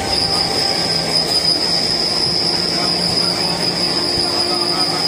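Running noise of a train as it passes close alongside a line of covered freight wagons on the adjacent track, with a steady high-pitched metallic wheel squeal over the rumble.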